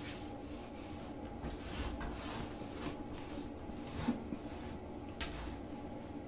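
Woven rag rug dragged across a tile floor in short jerks by a cat pulling it under a door: a series of soft swishing rubs, with a small knock about four seconds in.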